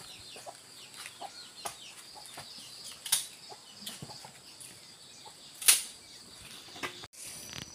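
Outdoor ambience: a faint steady high insect buzz with scattered small clicks and rustles, and two short sharp sounds, about three seconds in and again near six seconds, the second the loudest.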